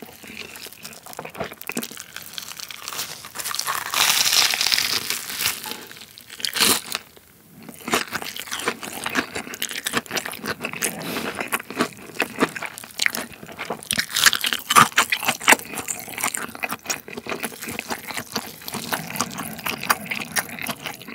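Close-miked crunching and chewing of a deep-fried, breadcrumb-coated cheese roll pork cutlet, the crisp crust crackling with each bite. The loudest crunching comes about four seconds in and again around fourteen seconds.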